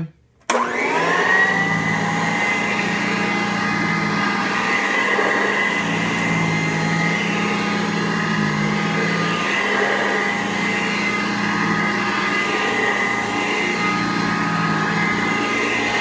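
Sanitaire SC887 upright vacuum cleaner switched on about half a second in, its motor whine rising as it spins up, then running steadily as it vacuums carpet.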